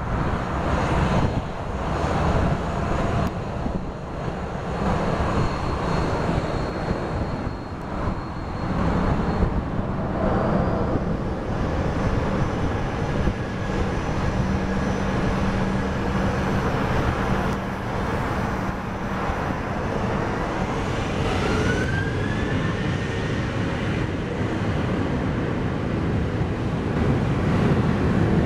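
Boeing 737-800's CFM56 jet engines running as the airliner moves onto and along the runway. About three quarters of the way through, a whine rises in pitch and the engines grow louder toward the end as thrust comes up for takeoff.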